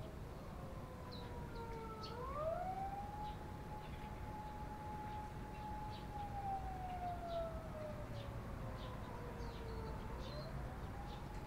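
Emergency-vehicle siren wailing: a slow wail that rises, holds its pitch for a few seconds, falls over several seconds, then rises again near the end. Faint, short chirps of sparrows come in between.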